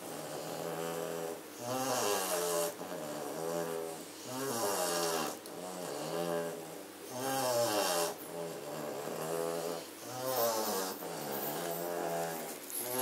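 German Shorthaired Pointer puppy snoring in deep sleep. The snores are pitched and wavering and come in a regular rhythm of breaths, about one every two to two and a half seconds.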